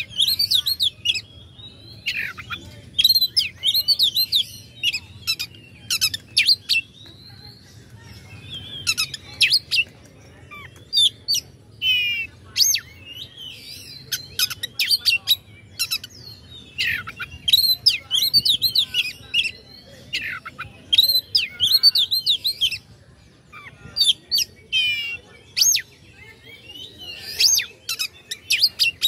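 Oriental magpie-robin (kacer) singing a varied song of whistled notes, rapid trills and buzzy phrases, delivered in short bursts with brief pauses between them.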